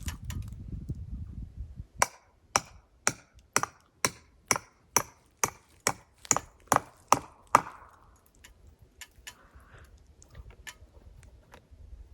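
A hammer strikes wood about thirteen times in steady succession, roughly two blows a second, the last blows the loudest. Faint handling ticks follow.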